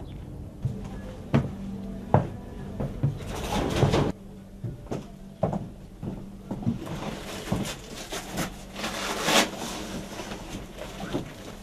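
Irregular knocks and thumps with rustling of fabric and webbing as soldiers handle and pull on their kit and body armour in a small room.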